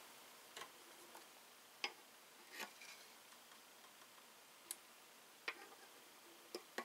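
Near silence with a handful of faint, scattered clicks and taps as a tin 3-in-1 oil can is handled and tipped over a freshly sharpened axe head to oil its edge.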